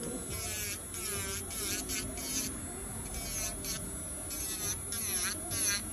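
Electric nail drill whirring against an acrylic nail in a series of short passes, its whine dipping in pitch and recovering as the bit bites into the nail and lifts off.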